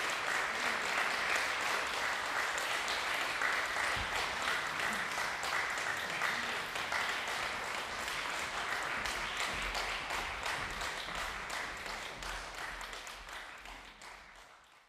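Audience applauding steadily, a dense patter of clapping that fades away over the last few seconds.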